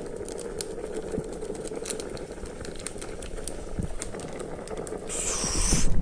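Foil masala sachet crinkling as the spice powder is shaken into a kettle of hot Maggi noodles, with small crackles throughout. A louder burst of rustling comes near the end.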